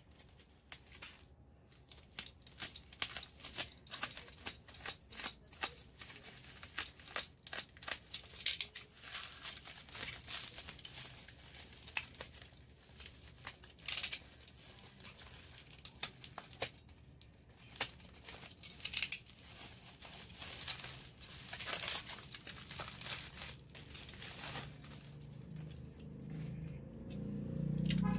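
Plastic bubble wrap being pulled and torn off a small cardboard box. It crinkles and crackles in an irregular run of sharp rustles.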